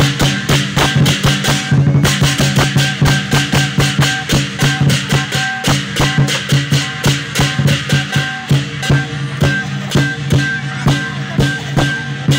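Lion dance percussion of a large drum, clashing cymbals and gong, played in a fast, steady, driving rhythm.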